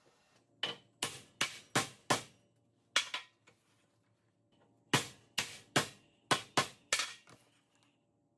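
Hammer blows on a steel nail clamped in a bench vise, bending it. About five quick strikes come first, then two, then about six more, each sharp with a brief metallic ring.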